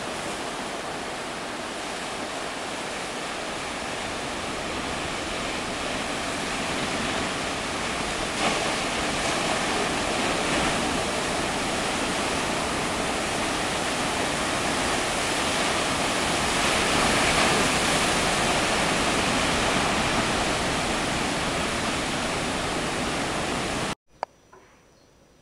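Ocean surf breaking on a rocky shore: a steady rush of white water that grows louder about two-thirds of the way through. Near the end it cuts off abruptly to near quiet, with one sharp click.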